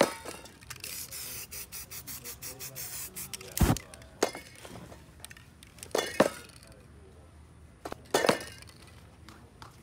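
Aerosol spray-paint can hissing for a couple of seconds, then several short sharp bursts, one with a low whoosh about three and a half seconds in, as the sprayed paint is set alight and flares.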